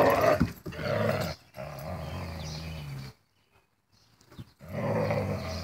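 Dogs growling while play-fighting, in several rough bursts, the longest held growl lasting about a second and a half. There is a pause of about a second and a half before another growl near the end.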